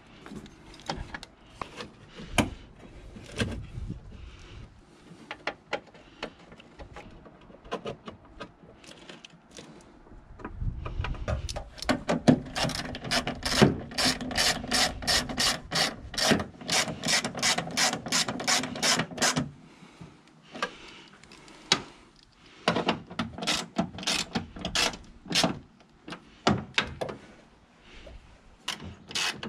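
Hand ratchet wrench clicking in quick runs as a fastener is turned. The longest run comes in the middle, with more short runs after a pause near the end.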